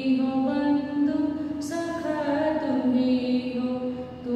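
A woman chanting a prayer alone in a slow, sung voice, holding long notes that step slowly from pitch to pitch.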